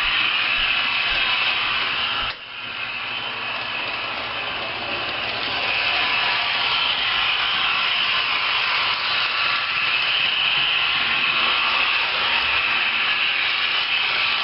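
HO-scale ViTrains Minuetto model train running fast on the track: a steady rushing noise from the train that drops sharply about two seconds in and builds back up over the next few seconds.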